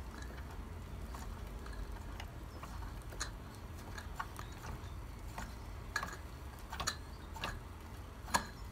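Wilesco D305 toy steam fire engine's small steam engine turning over as it is being started, giving irregular soft ticks and puffs about once or twice a second over a low steady hum. It is not yet running freely on its still-warming steam.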